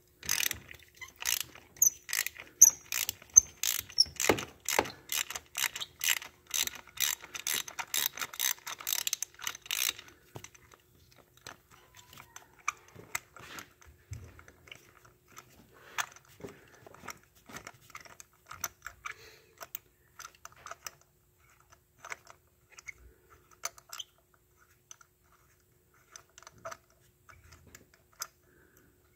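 Ratchet wrench clicking steadily, about three clicks a second, turning a spark plug out of its deep well through a socket and two extensions. After about ten seconds the ratcheting stops, leaving scattered fainter clicks and taps.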